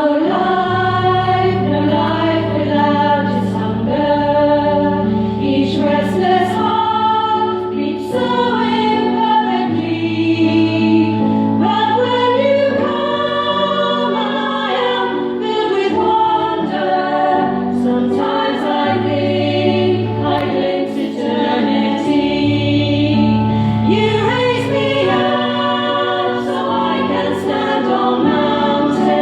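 A women's choir singing in parts over a low sustained accompaniment.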